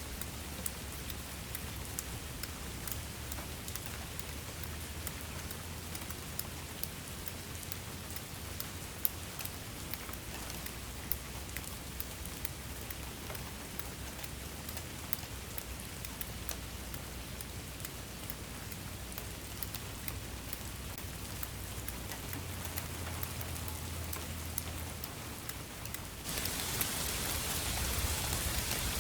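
Steady rain with many individual drops ticking. About 26 seconds in it switches suddenly to louder, hissier rain.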